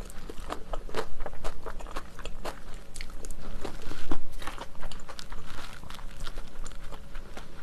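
Close-miked chewing of a mouthful of jajangmyeon, a quick irregular run of small crisp crunches and wet mouth clicks, somewhat louder about four seconds in.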